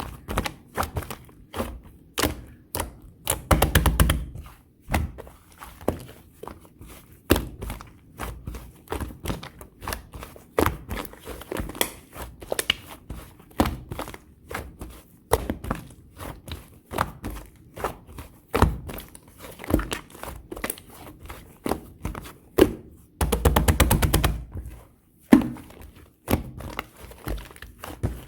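Pink clear slime mixed with clay being pressed and folded by hand, giving a string of sticky clicks and pops. About 4 seconds in and again near the end it breaks into a short run of rapid crackling pops.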